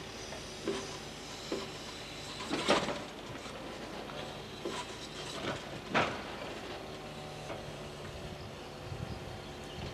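Timber crane loading logs onto a Scania R440 timber truck: a series of irregular wooden knocks and clunks as the grapple handles the logs, the loudest about three seconds in and another about six seconds in. Under them the truck's engine runs steadily, driving the crane's hydraulics.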